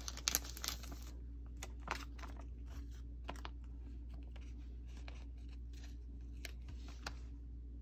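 Stickers being peeled off a plastic sticker sheet and handled with metal tweezers: light crinkling of the sheet with scattered small clicks.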